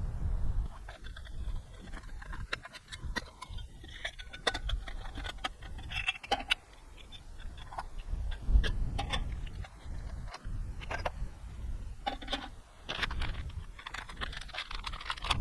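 Scattered clicks and light jangling clinks of small hard objects being handled, irregular throughout, over an uneven low rumble.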